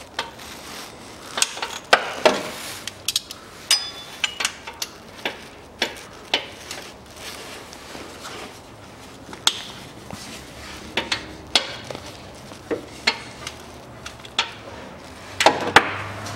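Socket wrench and loosened bolts clinking and knocking against metal as the timing-belt tensioner pulley's bolts are undone: irregular sharp clicks about once or twice a second, with a louder clatter near the end.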